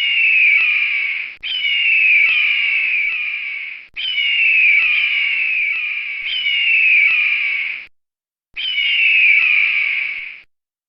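A bird calling with clear whistled notes, each sliding down in pitch, about one a second. The recording stops and restarts abruptly several times, with a short silent gap a little past the middle.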